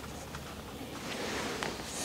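A few faint clicks and light knocks of wooden stand pieces and connectors being handled.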